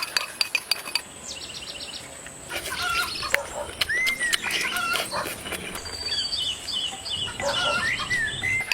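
Cutlery and dishes clinking, with small birds chirping repeatedly.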